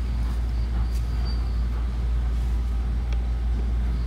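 Steady low rumble of background noise, with no speech.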